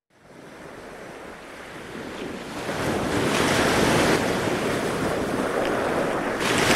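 Breaking ocean surf and wind rushing over the microphone: a steady rushing noise that fades in over the first few seconds.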